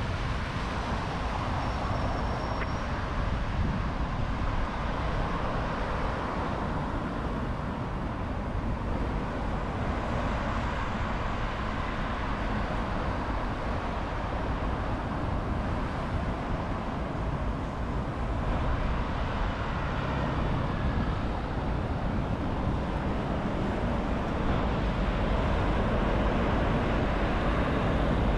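Steady city road traffic, an even wash of passing-vehicle noise over a continuous low rumble, with no single event standing out.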